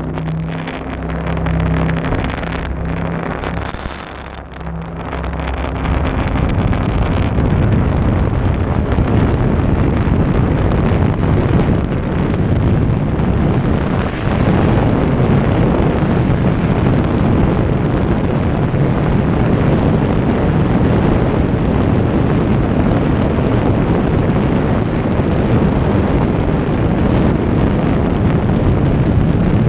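Jet boat engine running at low speed with a steady hum. About six seconds in, the boat speeds up and a loud, even rush of engine and wind on the microphone takes over.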